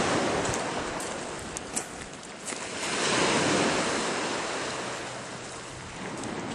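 Surf washing on a rocky shore, swelling and fading about three seconds in, with wind buffeting the microphone. A couple of sharp clicks of boots on stones come around two seconds in.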